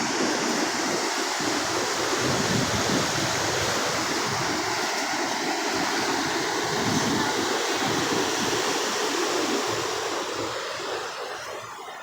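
Ocean surf washing onto the beach, a steady rushing hiss that fades out near the end.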